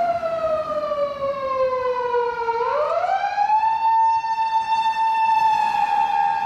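A siren wailing: its pitch slides slowly down for about two and a half seconds, then rises quickly and holds high.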